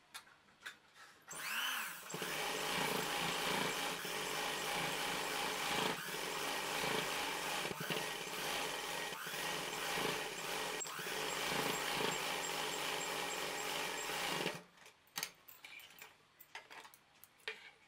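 Sewing machine running at a steady speed, stitching a seam along the edge of a folded fabric hem; it starts about a second in and stops near the end, followed by light clicks and rustling as the fabric is handled.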